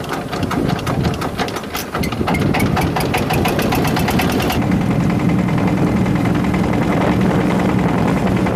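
Engine running with a rapid, even knocking beat, changing about four and a half seconds in to a steadier engine drone.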